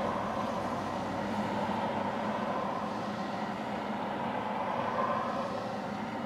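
Steady highway traffic noise: vehicles passing on the road, a constant rush of engine and tyre noise that swells slightly about five seconds in.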